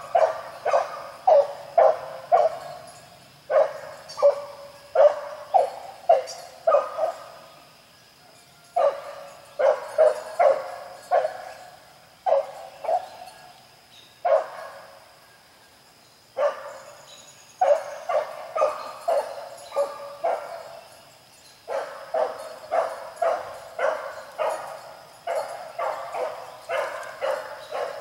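A single hound baying while running a rabbit's scent trail: bouts of short barks, about two a second, broken by brief pauses.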